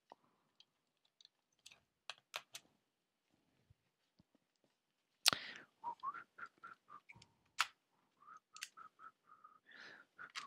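Plastic clicks and knocks from a Canon XA30 camcorder and an accessory being handled and fitted together, with two sharp clicks about halfway and near three-quarters of the way in; from about halfway, a quick run of short, high squeaks.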